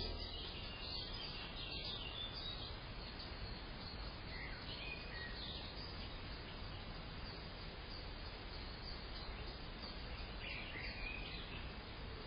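Steady outdoor background hiss with a few faint bird chirps, a short group about a third of the way through and another near the end.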